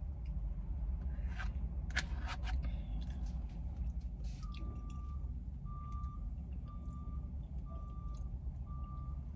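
Truck's reversing alarm beeping: five steady beeps of one pitch about a second apart, starting about halfway through, heard from inside a car over a low engine rumble.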